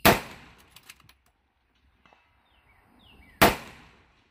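Two rifle shots from a 6mm Creedmoor bolt-action rifle, a little over three seconds apart, each ringing out briefly before fading.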